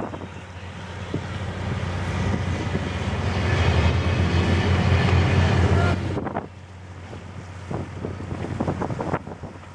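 Harbour tug's diesel engine running with a steady low hum, swelling louder over the first six seconds as it throttles up and churns the water, then dropping away sharply. Wind buffets the microphone.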